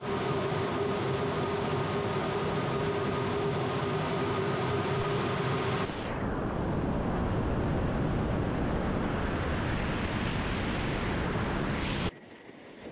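Loud, steady in-flight noise of a Su-34 jet heard inside the cockpit: engine and airflow noise with a steady hum. About six seconds in it turns to duller rushing air from a camera mounted outside under the wing. Near the end it drops abruptly to a much quieter sound.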